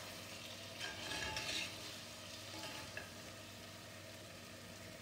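A spatula stirring and scraping a thick tuna roast in a heavy black kadai over a low, steady sizzle, with the loudest scraping about a second in and a small clack of the spatula near the middle.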